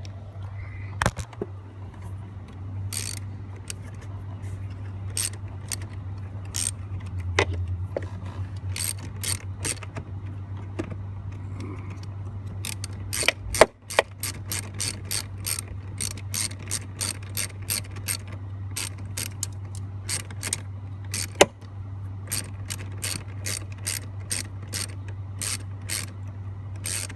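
Ratcheting clicks from a hand tool driving fasteners home. The clicks are scattered at first and become a steady run of about two to three a second about halfway through, over a steady low hum.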